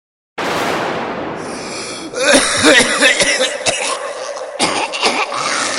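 A man coughing over and over in heavy fits, played as a tuberculosis cough. It comes in about two seconds in, after a brief hiss.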